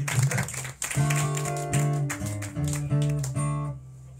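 Clapping in the first second, then guitar chords, played several times and dying away near the end.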